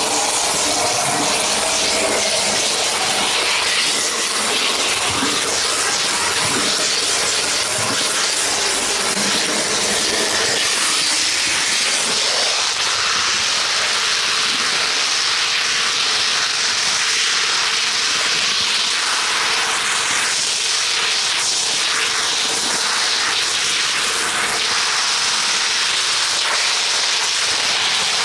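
Steady rushing hiss of a model train's wheels rolling along the rails, picked up close by a camera riding on a wagon. It turns thinner and brighter about twelve seconds in.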